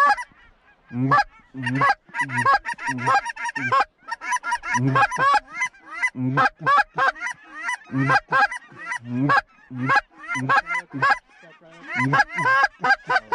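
Hand-held goose call blown in a fast, steady run of short honks and clucks, each note jumping from a low tone to a high crack, with a few brief pauses. It is calling to a flock of geese circling overhead to bring them in.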